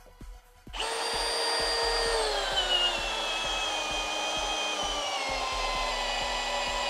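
Milwaukee M18 Fuel Gen4 hammer drill in drill mode on speed 1, driving a 6-inch by 1/2-inch lag screw into a timber block. The motor whine starts about a second in and holds steady, then its pitch sinks gradually as the drill slows under the growing load of the lag going deeper.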